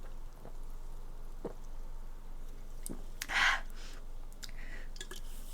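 A few soft clicks and dull taps close to the microphone, then a short breathy hiss of air about three seconds in, the loudest sound.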